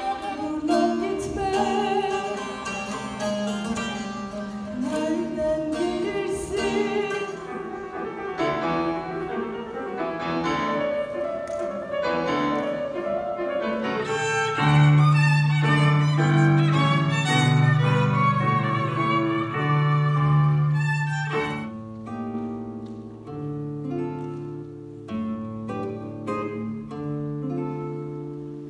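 Live instrumental music from several short concert excerpts joined together. It opens with a bağlama and a bowed Turkish folk fiddle, then changes abruptly about 14 seconds in to bowed strings with piano and strong low held notes, and changes again about 21 seconds in.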